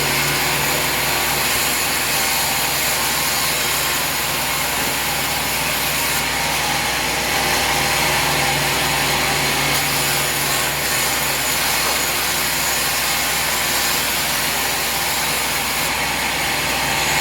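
Sawmill saw cutting steadily through a log, a continuous even rasp over a low machine hum.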